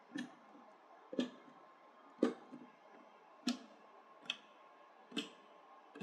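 DDR4 ECC memory sticks being pressed into motherboard DIMM slots, the slot latches snapping shut: six sharp clicks about a second apart.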